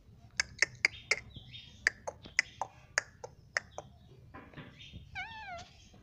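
Indian ringneck parakeet calling: a quick run of about a dozen short, sharp chirps and clicks, then one short warbling whistle near the end.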